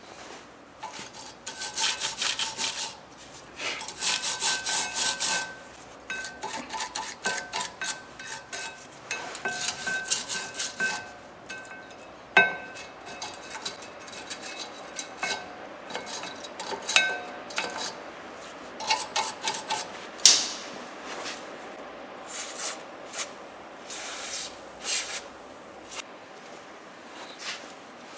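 A hand tool scraping and rasping on metal in irregular runs of quick strokes, with a few sharp metallic clinks.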